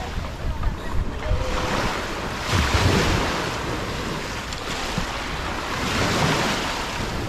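Wind buffeting the microphone over the sea, with a low rumble and the wash of water; the noise swells and eases every couple of seconds.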